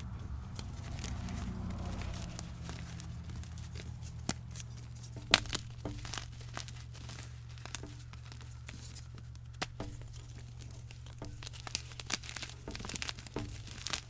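Block of gym chalk being crushed and crumbled by hand: scattered crisp crunches and crackles, the sharpest about five seconds in, over a steady low hum.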